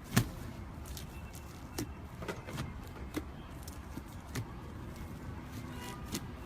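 Slime being squished and pressed by hand, giving irregular sticky clicks and small pops, the loudest one just after the start.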